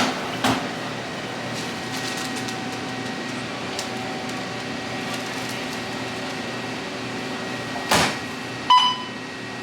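Steady hum of restaurant appliances with a couple of sharp knocks, and a short electronic beep from an appliance near the end.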